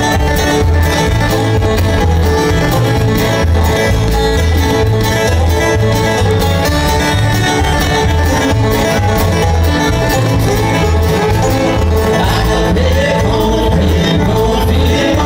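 Live bluegrass band playing banjo, mandolin, acoustic guitars and upright bass over a steady two-beat bass line.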